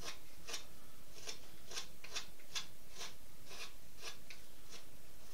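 A carving knife paring small shavings off a wooden duck decoy's bill by hand: a quick run of short, crisp scraping cuts, about two a second.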